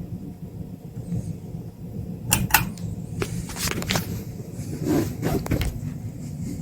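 Steady low rumble, then a run of sharp clicks and knocks starting about two seconds in.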